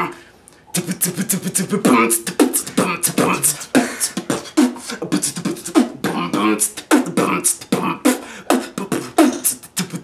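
A person beatboxing: fast, rhythmic mouth-made drum strokes with short pitched vocal sounds mixed in, starting just under a second in after a brief pause.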